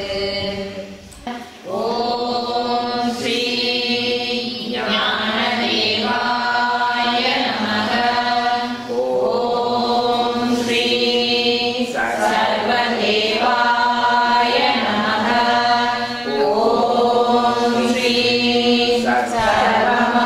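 Several voices chanting a devotional mantra together in long held phrases of a couple of seconds each, over a steady low held note, with a short break about a second in.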